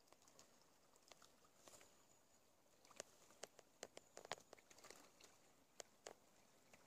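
Faint footsteps on the leaf-covered forest floor: a scatter of soft clicks and crackles at walking pace, starting about three seconds in, over a quiet hiss.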